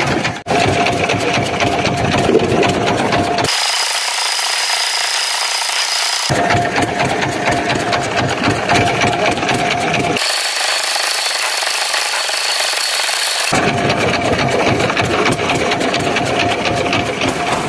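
Fishing boat's engine running steadily with a dense mechanical rattle and a faint steady hum. Twice the low rumble cuts out abruptly for about three seconds, leaving only a thin hiss with a high steady whine.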